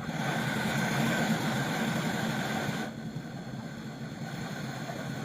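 Brazing torch flame running with a steady rushing hiss, its higher part dropping away about three seconds in.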